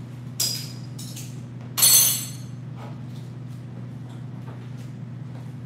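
Metal kitchen utensils clinking: a short clink, then a louder rattling clatter with a brief ring about two seconds in, over a steady low hum.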